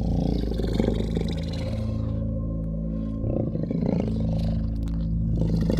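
A low, rumbling creature growl or roar sound effect over a steady low drone.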